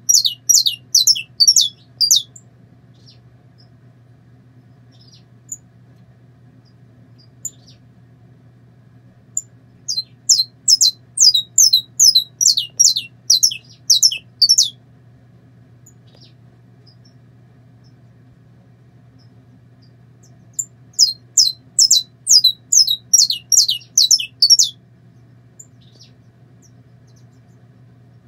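Saffron finch singing in three bouts of rapidly repeated, sharp downward-sweeping notes, about three a second, each bout a few seconds long: one ending about two seconds in, one around the middle and one near the end. A faint steady low hum lies underneath.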